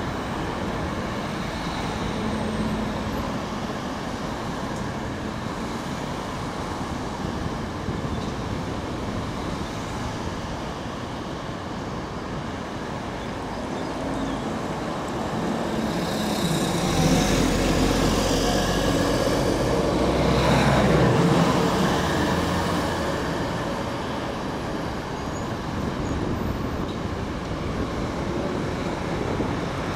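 Steady city road traffic and rail-yard background noise. A heavy vehicle passes close by a little past halfway, swelling into a low rumble and then fading.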